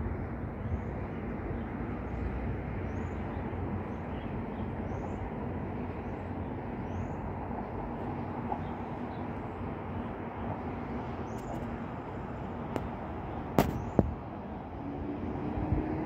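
Steady outdoor background hum, with a faint high chirp repeating about once a second through the first half and two sharp clicks a little past the middle.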